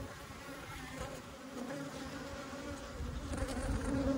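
Honeybees buzzing in a steady, even hum around an open hive. A low rumble joins in near the end.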